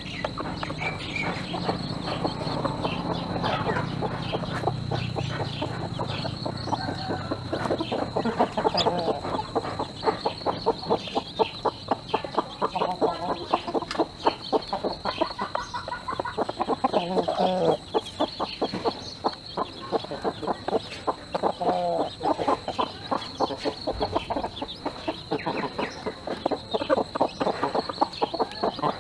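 Hen clucking every few seconds while she and her chicks peck grain from a feeding tray, with many quick sharp pecking clicks throughout.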